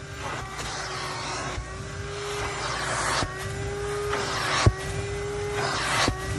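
Wet/dry shop vacuum running with a steady motor whine while its hose nozzle is worked across the flood-soaked floor of a car under the seat, drawing water out. The suction rises and falls in rushes, and the nozzle knocks sharply three times against the floor and seat frame, loudest about halfway through.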